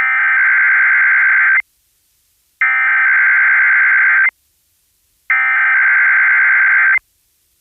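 Emergency Alert System SAME header: three bursts of buzzing digital data tones, each about one and a half seconds long with about a second of silence between them, the code that opens an EAS alert.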